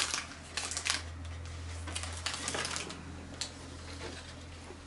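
Paper food wrapper crinkling and rustling in several short bursts as it is handled and pulled from under a plate of food.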